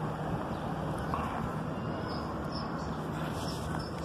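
Steady mechanical hum and fan noise from a Carrier packaged air-conditioning unit running close by, with a low drone underneath. A few faint short chirps sound higher up.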